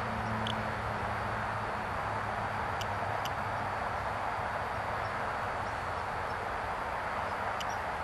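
Steady rushing background noise outdoors, picked up by the goggle DVR's microphone, with a few faint short ticks.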